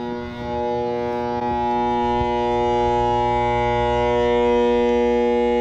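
Air conditioner condenser unit humming loudly and steadily as its motors try and fail to start, the sign of a failed run capacitor. The hum swells over the first second or so, then holds.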